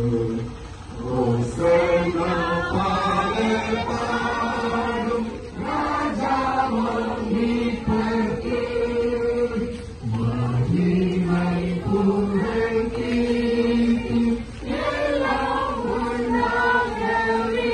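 A procession crowd of mostly women's voices singing a hymn together in unison as they walk, steady and continuous.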